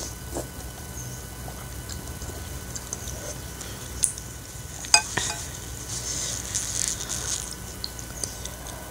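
Eating sounds: a metal spoon clicks against a ceramic bowl, sharply twice about four and five seconds in, and scoops through the noodle soup, with wet mouth noises from eating noodles.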